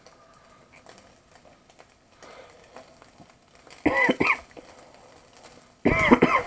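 A person coughing twice, about two seconds apart, with a quiet stretch before. The cough is that of someone who is unwell.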